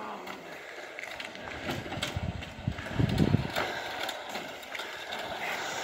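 Loaded metal sled scraping and grinding over concrete paving stones as it is dragged by ropes, with a few louder low thumps about halfway through.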